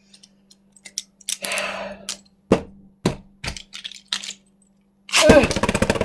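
Scattered hard plastic clicks and knocks as Beyblade tops and launchers are handled. About five seconds in, a sudden loud, fast clatter starts: Beyblade tops launched into a plastic stadium, spinning and striking each other.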